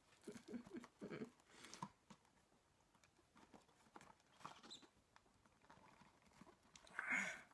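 Fingers picking and scratching at a taped cardboard box while struggling to open it: faint, scattered clicks and scrapes, with one louder scrape or tear near the end.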